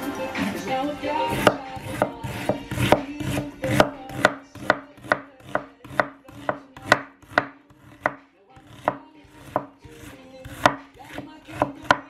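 Chef's knife slicing a red onion on a bamboo cutting board: a steady run of knife strokes, about two a second, each ending in a sharp knock on the board, starting about a second and a half in.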